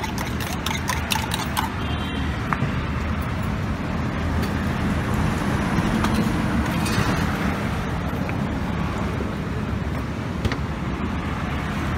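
A metal spoon clinking rapidly against a steel tumbler as it stirs, stopping after about a second and a half, over a steady low rumble of road traffic.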